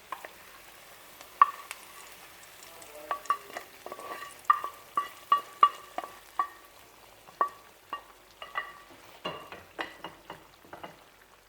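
A metal spoon stirring a pot of kalai dal cooking with fish head, clinking irregularly against the pot's side with short ringing taps over a faint sizzle.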